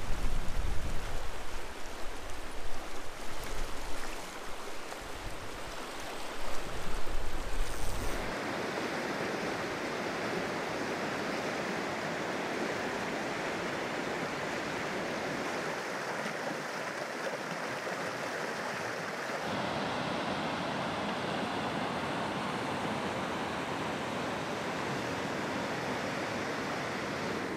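Mountain trout stream rushing over rocks: a steady hiss of moving water. Louder and uneven, with a low rumble, for the first eight seconds, then even from there on.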